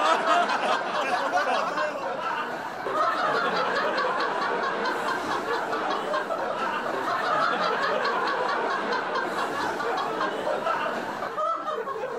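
People laughing, several voices overlapping.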